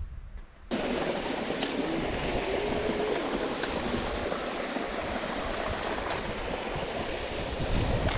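Steady rush of a mountain stream's flowing water, starting abruptly just under a second in; near the end, wind begins buffeting the microphone with a low rumble.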